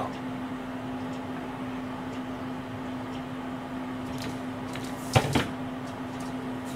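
Steady low hum of a kitchen, with two sharp knocks in quick succession about five seconds in.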